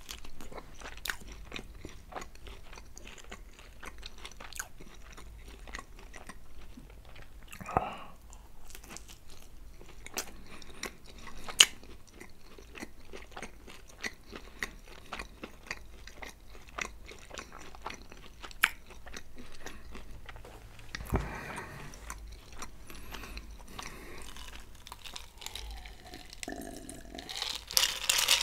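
Close-miked chewing of Domino's pizza, with crunchy bites of crust and many small mouth clicks and crackles. A louder hissing noise comes near the end.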